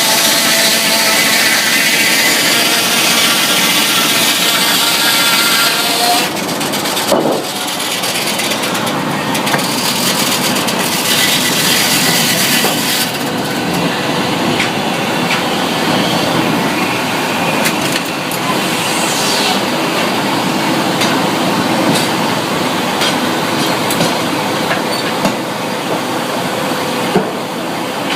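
Sawmill machinery running and sawing wood, with an engine running steadily underneath. The sound drops and changes about six seconds in, and scattered knocks and clicks follow.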